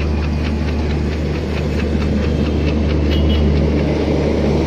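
Passenger train coaches rolling slowly out of a station, with a steady low rumble and a quick, irregular run of metallic clicks from the wheels on the track.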